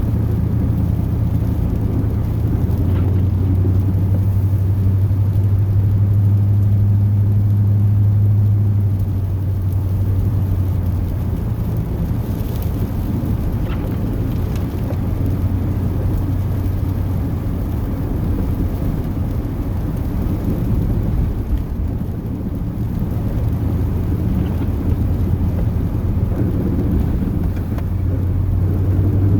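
Chevrolet 8.1-litre Vortec big-block V8 of a plow truck running steadily under way, a low drone heard from inside the cab. It rises a little for several seconds near the start, then eases back.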